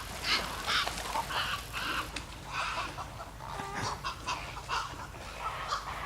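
A flock of waterbirds calling in many short, overlapping calls, several a second, as the birds flush from the water.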